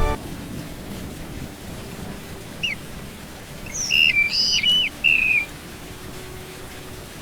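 Small bird chirping: two short chirps, then about a second and a half later a quick run of whistled chirps that glide up and down, over a steady hiss.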